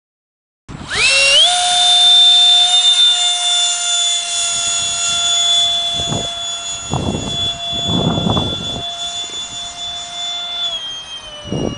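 Electric motor of a radio-controlled foam Saab Viggen model jet whining in flight, rising quickly in pitch as it comes in about a second in, holding a steady high whine, then dropping slightly in pitch near the end. Several low gusts of wind buffet the microphone.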